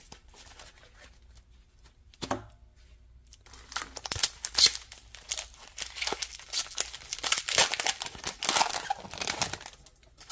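Foil-lined Pokémon TCG booster pack wrapper being crinkled and torn open by hand. A dense run of sharp crackling starts about three and a half seconds in and stops shortly before the end.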